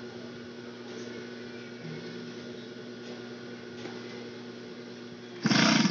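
Industrial sewing machine's motor humming steadily at idle, with a few fixed tones. Near the end the machine starts stitching in a loud, fast, even rattle.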